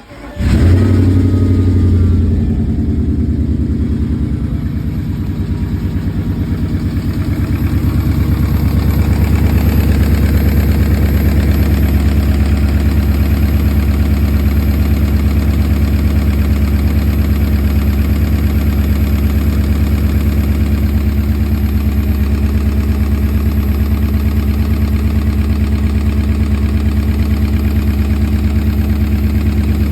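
Porsche Cayenne 955's 4.5-litre V8 starting up and running higher for about the first two seconds, then settling into a steady idle with a knock from the top of the engine, which the owner traces to scored cylinder walls.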